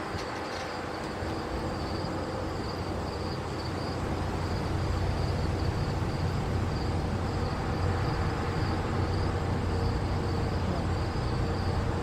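Outdoor ambience: insects buzzing in a steady high drone over a low rumble of distant vehicles, which grows a little louder about four seconds in.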